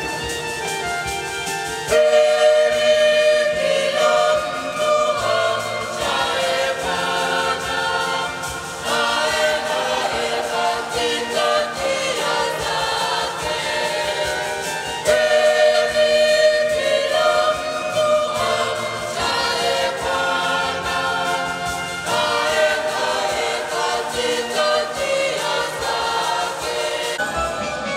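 Mixed youth church choir singing a hymn together, the voices growing louder about two seconds in.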